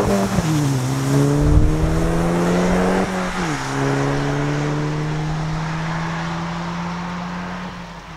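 2009 VW Golf 6 GTI's 2.0-litre turbocharged four-cylinder engine accelerating hard as the car passes and pulls away on a wet road, with tyre hiss from the wet tarmac. The engine note rises through the gears, with upshifts heard as sudden drops in pitch about half a second in and about three seconds in, and it fades as the car goes into the distance.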